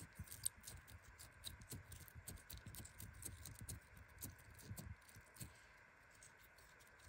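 Faint, sticky clicking and squelching of glossy slime being squeezed and stretched between fingers, many small pops in quick succession that thin out about five seconds in.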